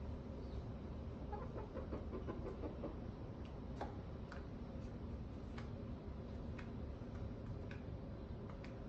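Hens clucking softly a few times in the first seconds, then scattered sharp clicks, about one a second, of their claws on the tile floor, over a steady low hum.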